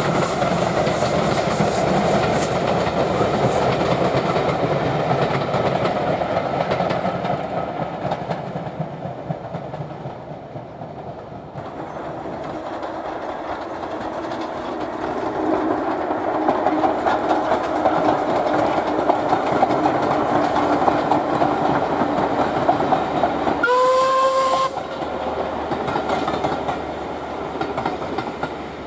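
Caledonian Railway 0-6-0 steam locomotive No. 828 and its coaches running past and fading away, then heard again growing louder. About two-thirds of the way through comes one short steam whistle blast, about a second long, before the train fades again.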